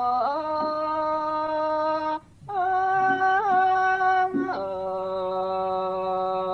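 A male voice singing a Thai classical song alone, without instruments, stretching long held vowel notes in three phrases with short breaks about two and four seconds in.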